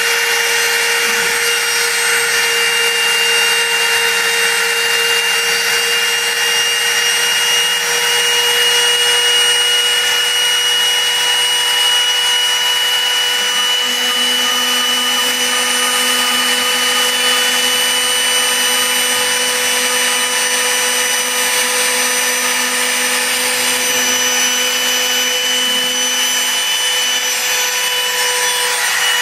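Mini CNC router's spindle running with a steady whine while its end mill cuts grooves in a wooden board, with a rough cutting rasp underneath. A lower steady hum joins about halfway through and stops near the end.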